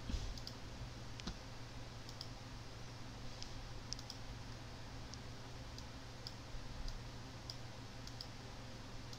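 Computer mouse clicking about a dozen times at irregular intervals while menus and a filter dialog are worked through, over a steady low electrical hum from the recording.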